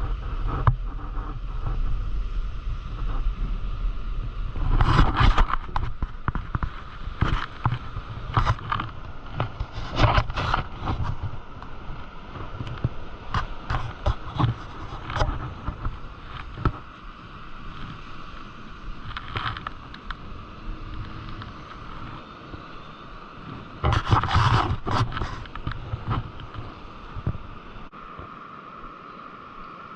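A SwellPro SplashDrone 4 quadcopter's propellers hum steadily as it flies back after dropping the bait. Wind rumbles on the microphone, and handling knocks and scrapes break in throughout, loudest about five seconds in and again around twenty-four seconds.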